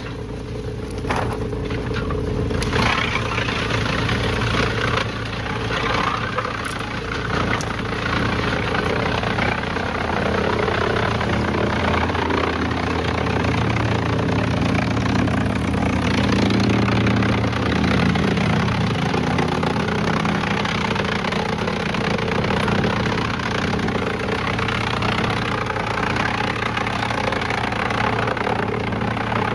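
A heavy machine's engine running steadily under load, with noisy machinery clatter over it and a few sharp knocks in the first three seconds. The engine drone grows somewhat louder and fuller in the middle of the stretch.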